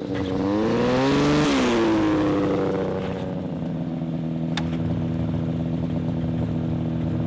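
Old snowmobile engine running: it revs up for about a second, drops back and settles into a steady idle. A single sharp click about halfway through.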